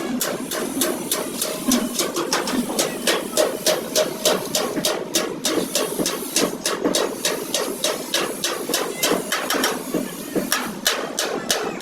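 A hammer striking in a quick, even rhythm, about five blows a second.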